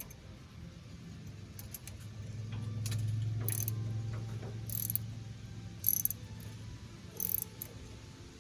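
Metal parts clicking and clinking about five times, spaced a second or so apart, as a PTO overrun clutch is worked onto a tractor's splined PTO shaft until it seats. A steady low hum underneath swells for a few seconds in the middle.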